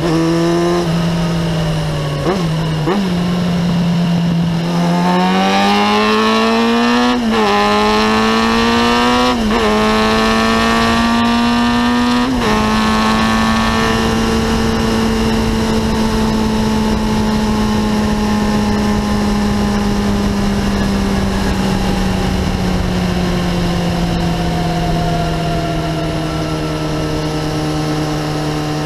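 Kawasaki ZX-9R inline-four through a Remus exhaust, heard from on board while riding. It accelerates through the gears: the engine note climbs and drops sharply at three upshifts. It then holds a steady cruise and slowly falls as the throttle eases.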